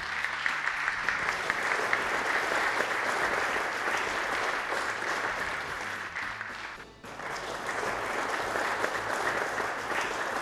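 Audience applauding, a dense steady clapping that drops away briefly about seven seconds in and then picks up again.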